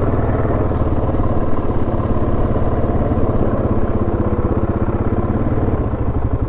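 Single-cylinder engine of a 2017 Yamaha Grizzly 700 ATV running steadily under way, a constant, even firing beat with no revving.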